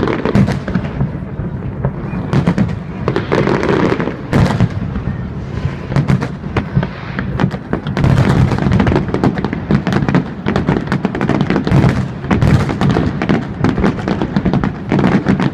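Aerial fireworks shells bursting in a loud, continuous volley, many sharp bangs following each other in quick succession.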